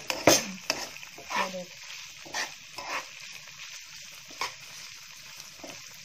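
Shrimp, garlic and chilli sizzling in oil in a granite-coated frying pan, stirred with a metal spatula that scrapes and knocks the pan in irregular strokes, more of them in the first half. The shrimp are still raw, just starting to cook in the garlic oil.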